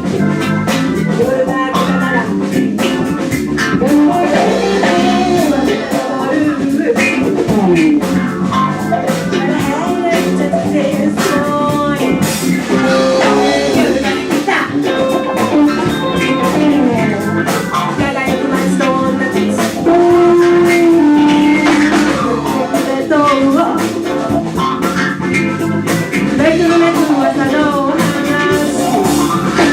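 Band playing a funk number, with a guitar prominent among gliding, bending melody lines.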